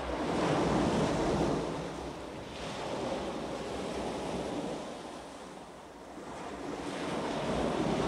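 Rushing water, a steady roar that swells and fades twice, with wind buffeting the microphone.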